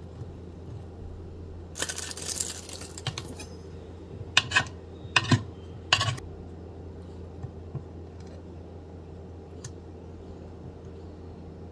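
Large kitchen knife chopping through cheddar cheese slices, striking the cutting board five times in quick succession, some blows in pairs. A short rustle comes just before the chopping, and a steady low hum runs underneath.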